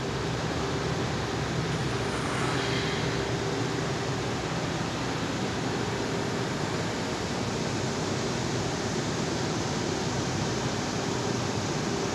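Large axial fans of a corn (grain) dryer running, a steady rushing of air with a low hum underneath.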